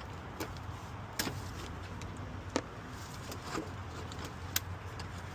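Scattered light metal clicks and knocks, about seven of them spaced a second or so apart, as the replacement alternator and its bolts are handled into place in a car engine bay, over a steady low hum.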